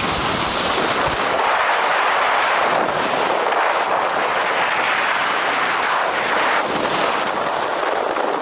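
Strong wind buffeting the microphone: a loud, unbroken rush of wind noise, with heavier low rumbling in the first second or so.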